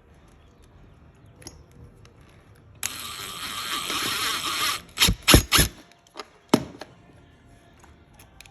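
Cordless drill driving a sheet-metal screw into a pool-gate latch catch for about two seconds, followed by three sharp clacks in quick succession and a single one a second later.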